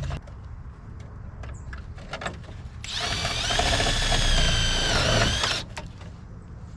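A cordless drill drives a self-tapping screw through a sheet-metal patch: a steady motor whine of almost three seconds starting about halfway in, its pitch dipping briefly just before it stops. Light knocks and handling noise come before and after.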